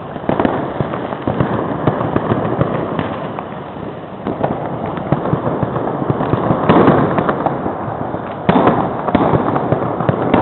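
Many fireworks and firecrackers going off at once: a dense, continuous crackle of bangs, with louder surges about two-thirds of the way in and again near the end.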